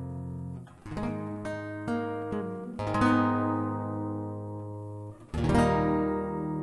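Acoustic guitar accompaniment playing the closing chords of a hymn, with no voice. A few strummed chords ring and fade, and the last and loudest is struck about five seconds in and left to ring.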